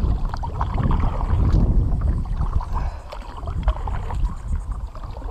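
Kayak paddle strokes: a double-bladed paddle dipping and splashing in the water as a sit-on-top kayak is paddled along, over a steady low rumble.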